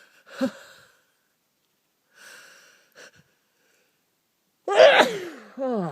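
A person in a sneezing fit: short catching breaths in as the sneeze builds, then a sudden loud sneeze near the end with a voiced cry falling in pitch, followed straight away by a second, shorter falling cry.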